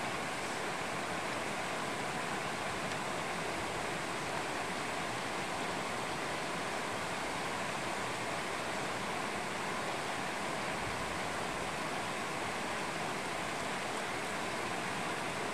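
Shallow mountain stream running over stones: a steady, even rush of water.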